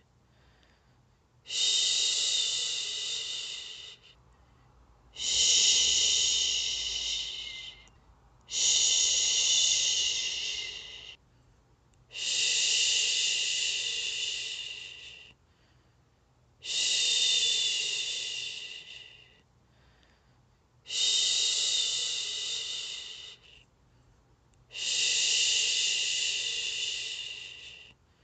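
A woman shushing, a long 'shhhh' to soothe a baby to sleep. There are seven hushes of about three seconds each, each fading slightly toward its end, with a pause of about a second between them.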